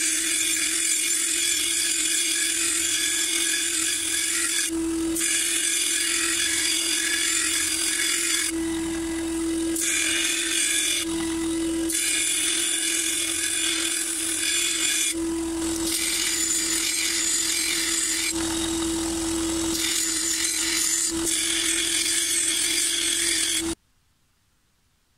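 Sealey 250 W belt and disc sander grinding the edge of a steel lawn mower blade: a steady motor hum under a harsh hiss of the abrasive belt on steel. The hiss drops out briefly several times, leaving the motor hum, and all sound cuts off abruptly near the end.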